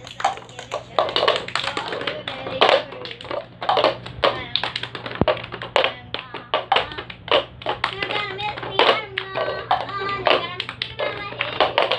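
Red plastic cups tapped and set down on a wooden floor, mixed with hand claps, in the fast repeating rhythm of a clapping cup game played by several children.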